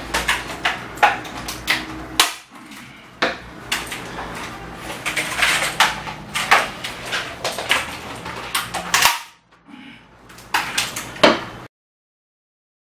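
James Donkey mechanical keyboard being bent and battered: a rapid, irregular series of sharp plastic cracks, snaps and knocks as the case gives way. It cuts off suddenly near the end.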